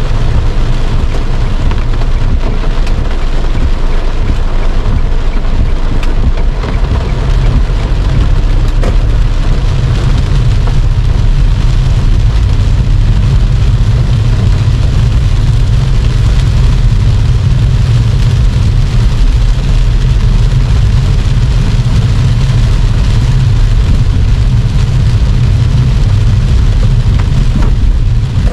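Heavy rain falling on a car's windshield and roof, heard from inside the cabin as a dense steady hiss of drops, over a steady low rumble of the car on the move.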